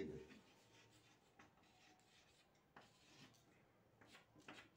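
Chalk tapping and scraping faintly on a blackboard as characters are written: a few short, scattered strokes, more of them in the last second.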